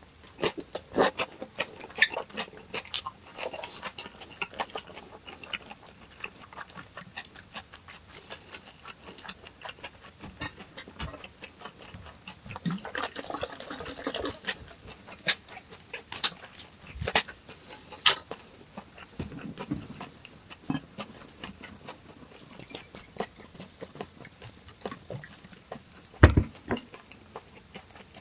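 Close-miked eating of hongeo samhap (fermented skate with boiled pork and kimchi): chewing and wet mouth smacks, with many short sharp clicks scattered throughout.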